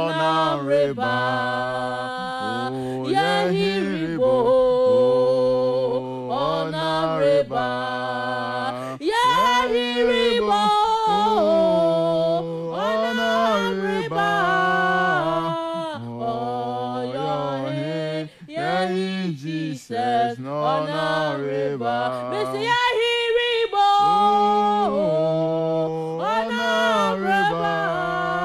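Unaccompanied gospel singing in Twi: a woman's and a man's voices singing together with long held notes and no instruments.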